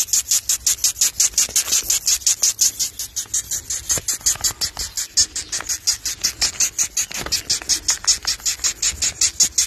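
Death's-head hawkmoth squeaking: a rapid, even train of short, shrill squeaks, about six a second, that starts abruptly and stops sharply. This is the moth's alarm squeak, made by drawing air in and pushing it out through its proboscis when disturbed.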